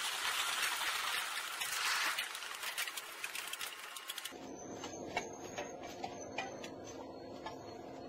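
Train running along the track: a hiss of wheel and wind noise full of rapid clicks and rattles. About four seconds in it changes abruptly to a quieter steady hum with scattered clicks.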